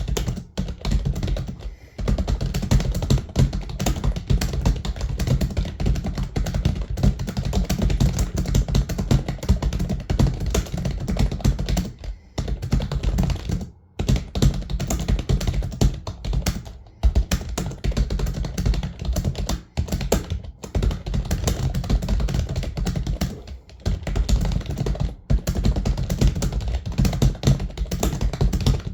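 Computer keyboard being typed on rapidly and continuously, a dense stream of key clicks with a few brief pauses. The typing is a fast Hindi typing test run at about 100 words per minute.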